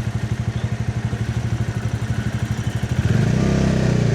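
Motorcycle engine idling with an even, rapid pulse. About three seconds in, it picks up revs and runs louder and smoother.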